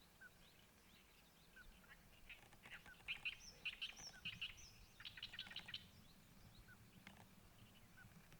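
Birds chirping: a quick run of rapid, high chirps in the middle, over a faint short call repeated about once a second.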